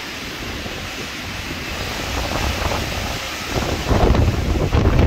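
Wind buffeting the microphone: a rushing, rumbling noise that swells louder about three and a half seconds in.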